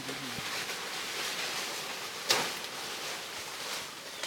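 Steady rustling hiss with one sharp crack a little past halfway.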